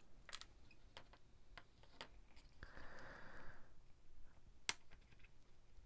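Faint, scattered sharp clicks of small flush cutters snipping component leads off a soldered circuit board, the loudest snip about three-quarters of the way through. A soft hiss lasts about a second in the middle.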